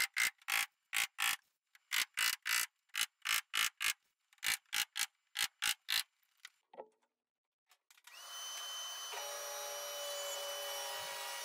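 A quick run of about twenty short rubbing strokes on the edge of a thin plywood sheet, roughly three a second, like hand sanding or rasping. After a pause of about two seconds, a table saw starts up and runs steadily with a high whine.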